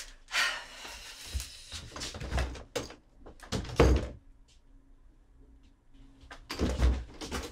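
Dull thuds and knocks, several in the first half, then a quiet stretch, then more thuds near the end.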